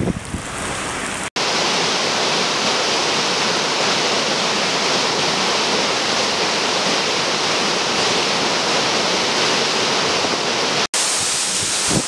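Swollen, muddy floodwater pouring over a small weir: a steady, even rush of water noise. Shortly before it, wind buffets the microphone beside the flooded river, and near the end the sound cuts to gusty wind.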